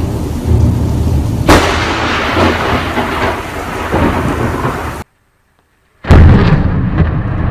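Film storm soundtrack: steady heavy rain with rumbling thunder and a sharp crack about one and a half seconds in. The sound drops out completely for about a second near the end, then comes back with a loud rumble.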